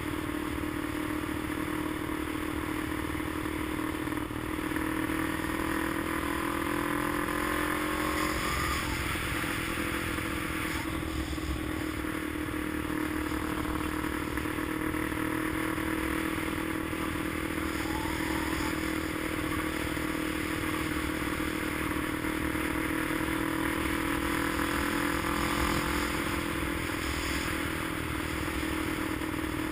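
A vehicle engine running steadily on the move, a continuous drone that shifts slightly in pitch, with road noise underneath.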